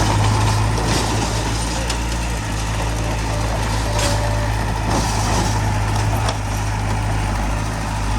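Heavy diesel earthmoving machinery running steadily with a deep engine drone, with a few short clattering knocks about one, four and five seconds in.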